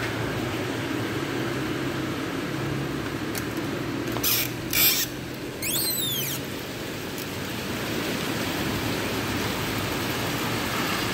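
Heavy rain pouring steadily onto roof tiles and the street, with a low hum of traffic under it. About four to five seconds in, two brief loud rushing noises are followed by a few quick squeaky chirps that glide in pitch.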